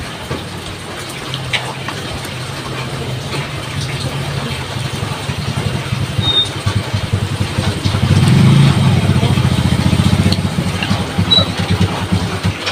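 A motor vehicle's engine running close by with a steady low drone, swelling louder about eight seconds in and easing off again near the end.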